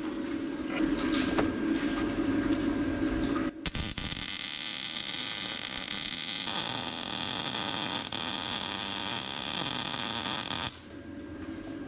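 MIG welder arc sizzling steadily as a bead is run on a steel caster bracket, starting about four seconds in and cutting off abruptly near the end. Before the arc strikes there is only a low steady hum and a few light clicks.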